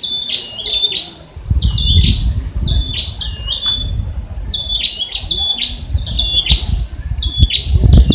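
A bird calls again and again in short, high chirps, each dipping and then holding a brief note, about a dozen at uneven spacing. A low rumble starts about one and a half seconds in and runs under them.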